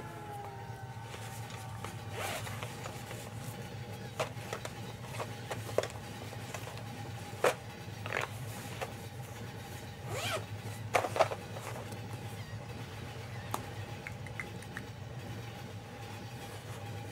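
A thick paper sketchbook being handled and its pages flipped: paper rustling and scraping with a dozen or so sharp taps and clicks, over a steady low hum.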